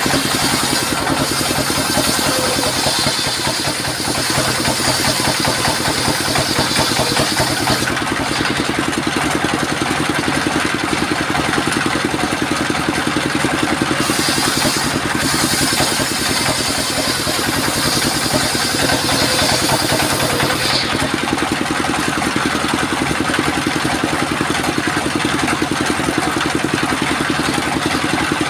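Engine of a mobile circular sawmill running steadily. Twice, for several seconds each, a high hiss of the circular saw blade cutting through sengon wood rises over the engine.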